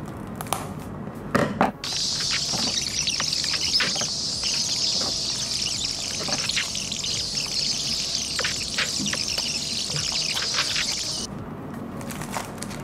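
Scissors snipping and packaging rustling as a small cardboard toy-car box is cut open. About two seconds in, a steady high hiss starts over rapid clicks and crinkles, a fast-forward effect, and cuts off sharply near the end.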